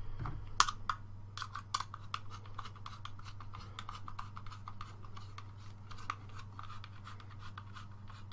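Small hex screwdriver driving the Allen-key screw through a CNC aluminium flat-bottom GoPro mount into a plastic GoPro case. It gives a run of small, irregular clicks and scratches of the tool tip, metal and plastic, with a sharper click about half a second in, as the screw is worked tight.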